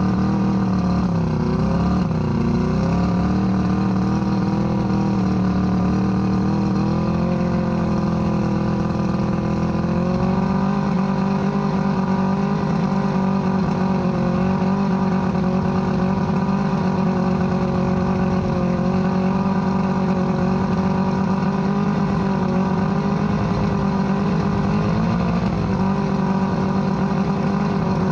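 1978 Johnson 115 hp Sea Horse V4 two-stroke outboard running with the cowling off. Its pitch dips and rises over the first few seconds as the throttle is worked, then it runs steadily. It has one cylinder not firing properly, according to the owner.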